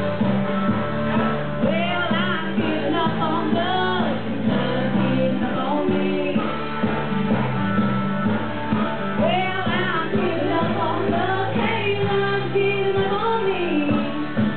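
A woman singing karaoke into a microphone over a rock-style backing track with guitar. Her voice carries the melody in stretches and drops out for a few seconds in the middle while the backing track plays on.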